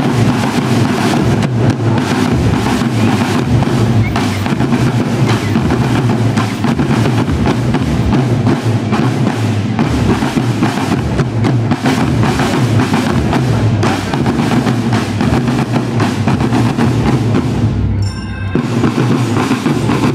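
Marching drum corps playing marching bass drums together, with fast, dense drum strokes and a short break about eighteen seconds in.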